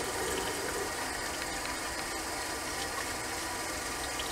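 Bathroom sink tap running steadily into the basin: the hot tap is left open while the water is still cold, waiting for hot water to come through the pipes from the far end of the house.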